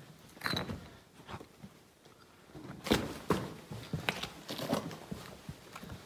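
Footsteps on the ice-covered rocks of a lava tube floor: a few scuffs, a short lull, then a run of irregular steps from about three seconds in.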